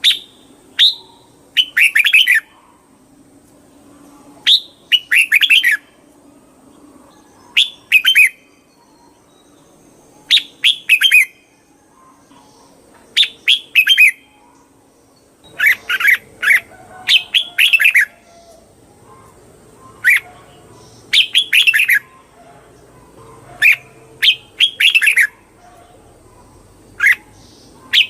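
Red-whiskered bulbul singing: short, bright, warbled phrases repeated every two to three seconds.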